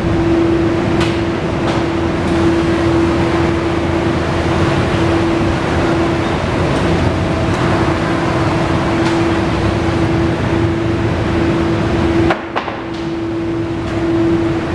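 A Kawasaki ZR-7S's air-cooled inline-four engine running steadily at idle, with a steady hum above the rumble. The rumble drops away briefly about twelve seconds in, then comes back.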